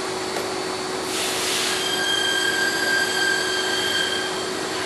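Steady machine hum with a short hiss about a second in, then a steady high whine lasting about two seconds.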